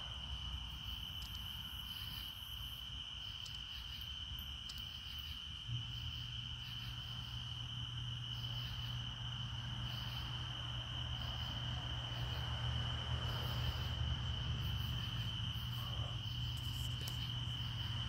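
Cicadas singing one steady high-pitched tone, with a fainter pulsing buzz above it, in a tone unlike their usual song. A low steady hum comes in about six seconds in.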